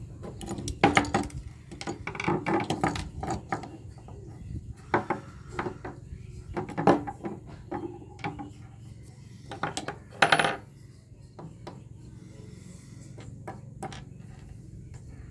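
Small metal scrap connectors clinking and clattering in irregular clusters as they are handled and dropped, with a longer ringing clatter about ten seconds in, over a low steady hum.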